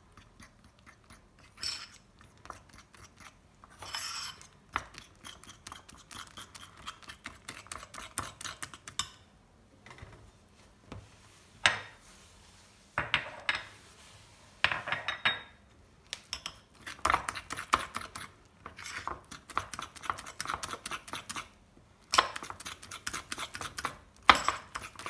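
A metal fork beating eggs, flour and a little water into batter in a ceramic bowl: fast clinking of the fork against the bowl in several runs, with short pauses between.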